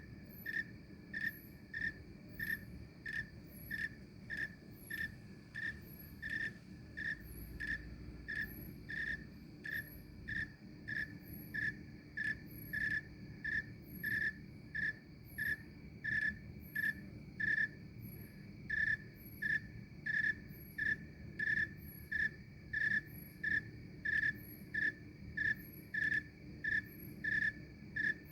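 Snowy tree cricket chirping in a steady, even rhythm, about three chirps every two seconds.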